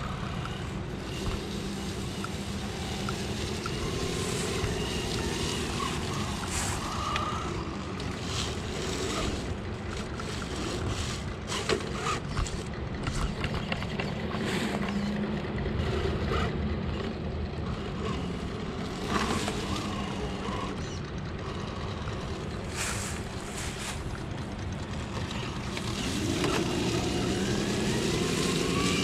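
Axial SCX10 III 1/10-scale RC crawler's brushless motor and geared drivetrain whining, the pitch rising and falling with the throttle and climbing louder near the end, with scattered clicks and knocks.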